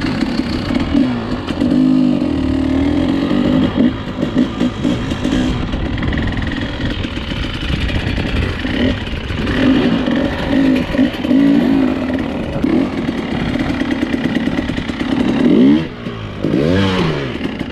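Dirt bike engine running as the bike is ridden, its revs rising and falling, with a few quick rev swings near the end.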